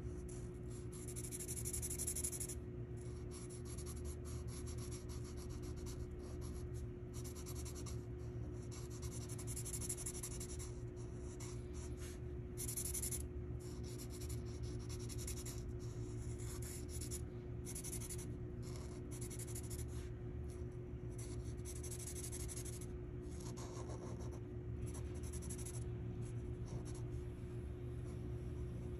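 Felt-tip Sharpie marker scribbling on paper in quick back-and-forth strokes, each stroke a short, soft scratch, with brief pauses between bursts of strokes. A steady low hum runs underneath.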